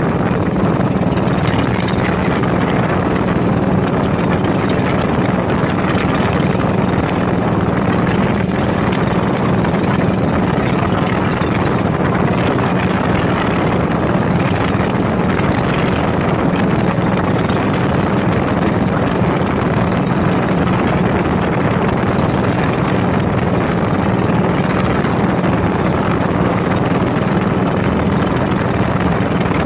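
Motorized outrigger boat's engine running steadily while the boat trolls, with water rushing along the hull.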